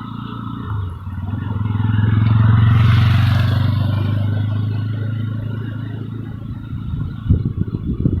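A motor vehicle's engine passing close by, growing louder to a peak about three seconds in and then fading away, followed near the end by irregular knocks and clatter.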